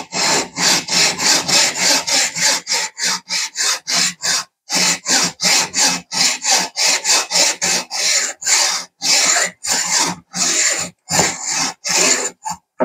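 Hacksaw cutting band grooves into a G10 slingshot frame, the blade guided along a steel block: fast, even back-and-forth rasping strokes, about three a second, with a brief pause about four and a half seconds in.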